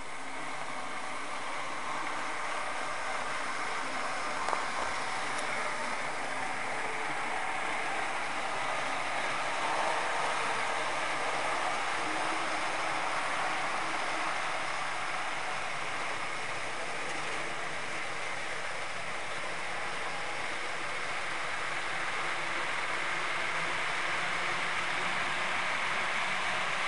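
Model trains running on a layout: a steady whir of locomotive motors and wheels rolling over the track, with one small click about four and a half seconds in.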